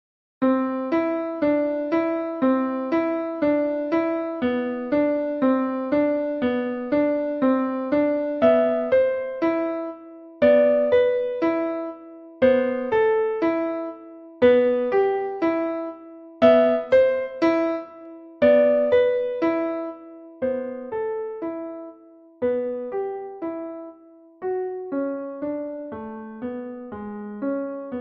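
Piano music from MuseScore's playback: single notes and chords struck and left to fade, starting about half a second in. It begins with an even run of about two notes a second, then turns to sparser, sharply louder accents, with abrupt swings in loudness.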